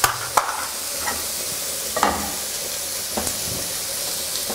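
Hake-and-bacon fish burgers sizzling steadily on a hot ridged grill pan. A few sharp clicks and knocks of pan and stove handling break in, two of them right at the start.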